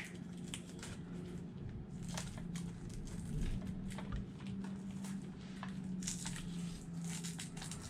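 Light clicks and rustles of hands tucking an RC car's battery balance wires into place, over a steady low hum.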